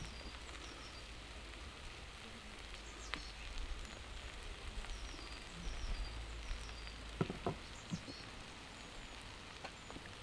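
Frying pan of onions, potatoes and wild greens sizzling steadily on the heat, with a few light knocks about three seconds in and again around seven seconds in.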